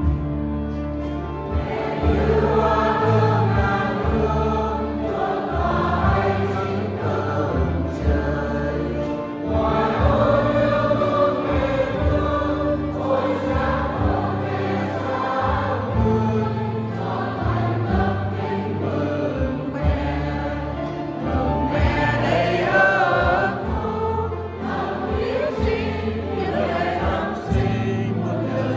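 Church choir singing a hymn with instrumental accompaniment under sustained low notes, echoing in the church.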